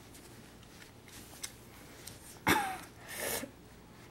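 A short human vocal sound about two and a half seconds in: a sudden voiced note falling in pitch, followed by a breathy hiss.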